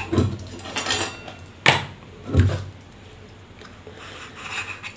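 Metal clinks and knocks from handling a cooler fan motor's parts as its rotor and shaft are pulled out of the end housing, with one sharp knock nearly two seconds in.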